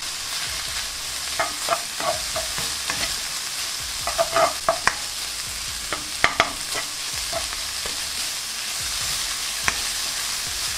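Spiced beef mince frying in a non-stick pan over medium-high heat: a steady sizzle, with the spatula scraping and knocking against the pan as the mince is stirred, the spices being cooked off.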